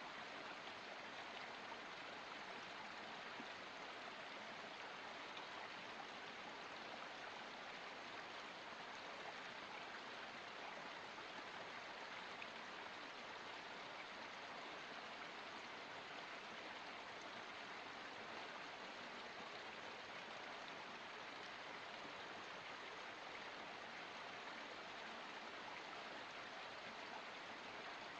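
Forest spring water running steadily: a low, even rush of flowing water with no breaks or changes.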